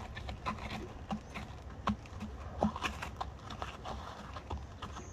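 Horse's hooves striking packed dirt at a walk: an even run of dull hoofbeats, about three a second.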